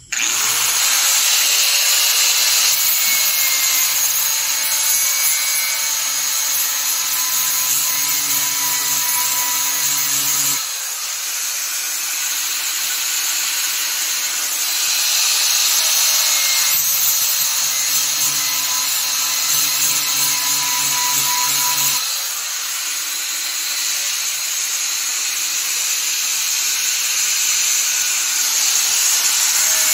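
Electric grinder running steadily, grinding material off a part to thin it down, with a loud high hiss and a faint whine; it starts abruptly and eases slightly about a third and two thirds of the way through.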